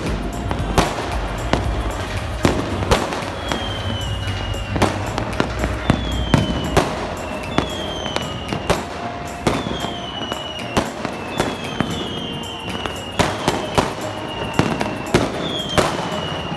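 Fireworks and firecrackers going off all around: a dense run of sharp bangs at irregular spacing. From a few seconds in, short whistles falling in pitch repeat about once a second among the bangs.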